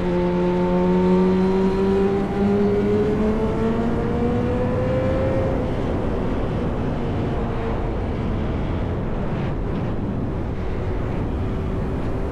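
Yamaha R1 inline-four with an SC Project exhaust under way, its note rising gently for the first five seconds or so. It then eases off and wind and road rush take over, and the engine note comes back in near the end.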